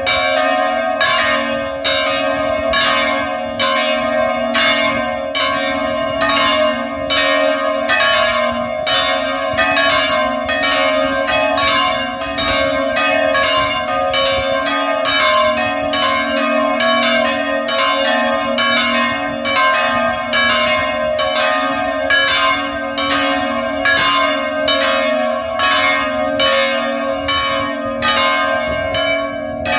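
Nineteenth-century bronze church bells swung by electric motors, ringing together in a continuous full peal. Strokes come steadily, about three every two seconds, each ringing on into the next.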